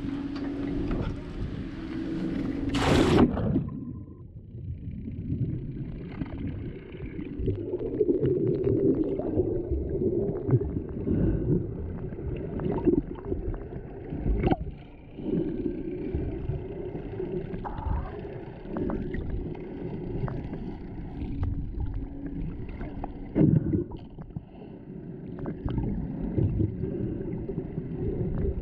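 A splash about three seconds in as the camera goes under the surface. After that comes muffled underwater sound heard through the GoPro's housing: a low rumble of moving water with scattered knocks and bubbling.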